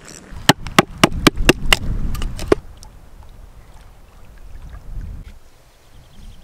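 A quick run of about nine sharp taps or clicks, roughly four a second, over a low rushing noise, stopping about two and a half seconds in. After that only faint rushing outdoor noise remains.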